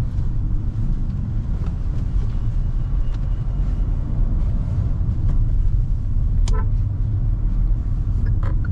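Kia Seltos on the move in traffic: a steady low road and engine rumble, with a short sharp sound about six and a half seconds in and another near the end.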